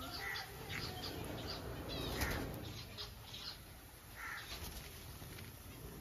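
Rose-ringed parakeet flapping its wings in a wire-mesh cage after a bath. Short bird chirps come every second or so.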